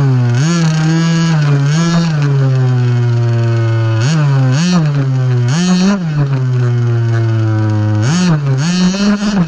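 RC buggy's motor giving a steady pitched hum that swoops up briefly in pitch several times as the throttle is blipped, then settles back.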